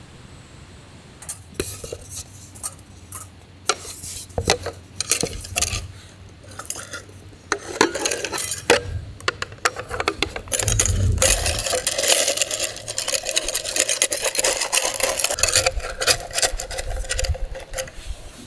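Camp cookware being handled: a scattered run of metal clinks and knocks, then about seven seconds of continuous scraping and hissing that stops abruptly near the end.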